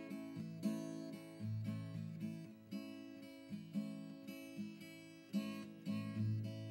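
Solo acoustic guitar music: picked notes and chords, each one ringing out and fading before the next.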